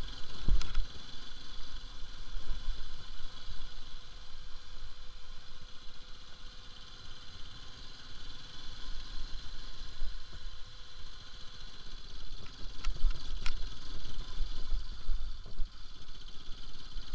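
Bajaj Pulsar RS200's single-cylinder engine running at low speed over a rough stony track, under an uneven low rumble. A few sharp knocks from the bumps come about half a second in and twice around thirteen seconds.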